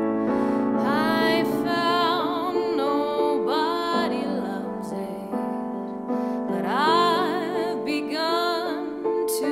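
A woman singing a slow melody, holding notes with vibrato, over sustained chords on an electric keyboard.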